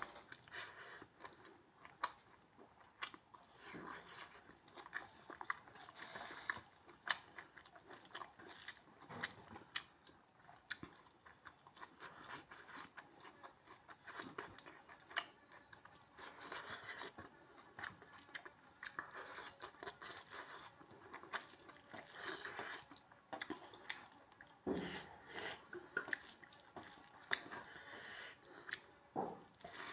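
A person chewing and biting pork meat up close, with crunching and many irregular sharp mouth clicks.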